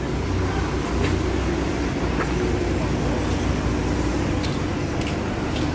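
Bus terminal ambience: a steady low rumble of vehicle engines running, with a few faint clicks.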